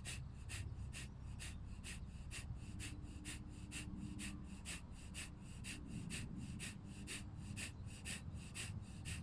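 Kapalabhati breathing: a rapid, even series of short, forceful exhales, about three a second, each one a sharp hiss of breath.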